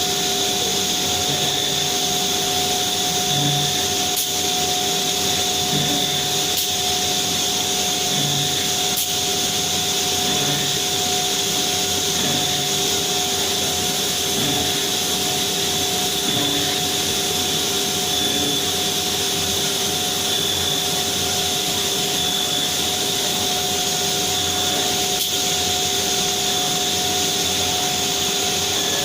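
CNC router running with a steady high-pitched spindle whine over a constant rushing hiss.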